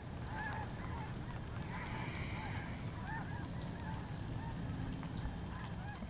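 A flock of Canada geese honking in flight: many short, overlapping calls one after another, over a steady low rumble.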